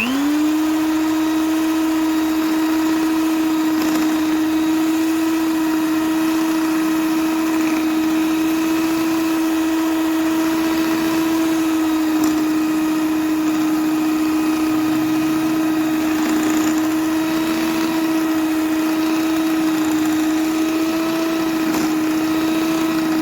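Electric mixer motor running at a steady speed, beating flour into a cake dough; it starts at once and holds one even pitch.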